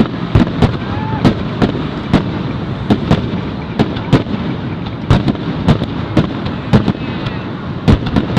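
Fireworks display: aerial shells bursting in a rapid, irregular run of sharp bangs, about two or three a second.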